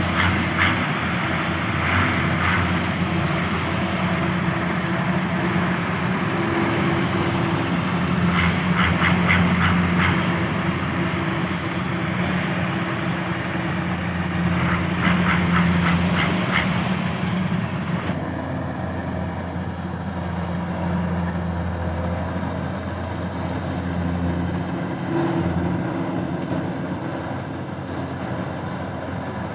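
Kubota DC70 combine harvester's diesel engine running steadily under working load, with a few short runs of rapid metallic clatter. The sound turns duller about two-thirds of the way through.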